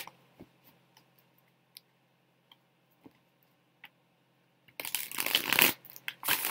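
Tarot cards being shuffled by hand: a few faint clicks of cards being handled, then a loud rustling shuffle about five seconds in and a shorter one near the end.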